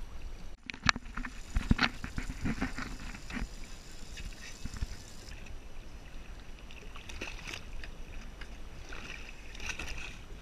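A run of knocks and thumps on a fibreglass boat, with water slapping at the hull, strongest in the first few seconds over a low steady rumble.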